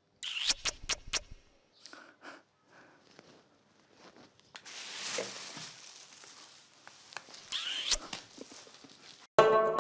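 Plastic shopping bag handled and rustling, after a few quick sharp knocks and handling noises at the start. Music starts loudly just before the end.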